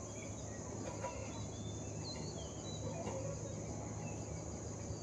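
Outdoor background of birds chirping faintly and intermittently over a steady high insect drone and a low steady hum.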